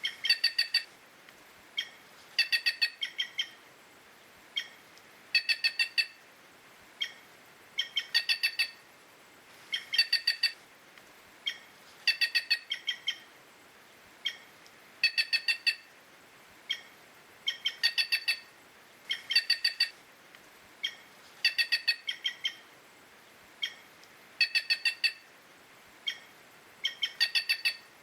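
White-naped jay (gralha-cancã) calling over and over: bursts of several quick notes about every two and a half seconds, with a single note between bursts.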